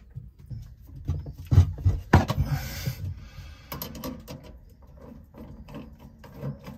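A stainless worm-drive hose clamp on a diesel fill hose being tightened with a screwdriver: a few knocks and a short rustle in the first half, then a run of small quick clicks as the driver turns.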